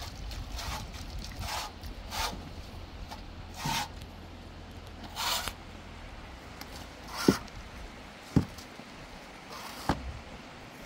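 Shovel scraping through wet cement mortar in a metal wheelbarrow while it is being mixed, a scraping stroke every second or two. Three sharp knocks come in the second half, the last one near the end.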